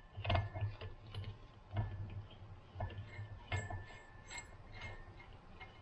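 Irregular light metallic clicks and taps, some with a short high metallic ring or scrape, from a C-clamp valve spring compressor being fitted and centred on a valve of a Subaru 2.5L aluminium cylinder head.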